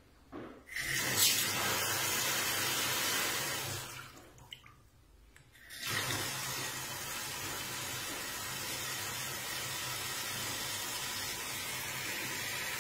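Water from an electric instant-heating faucet running into a stainless steel sink: the tap comes on about a second in, goes off around four seconds in, and comes on again about two seconds later, then runs steadily.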